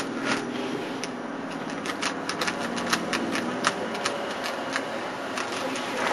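A Rubik's Cube being turned fast during a speed-solve: rapid, irregular clicking and clacking of the plastic layers, several clicks a second.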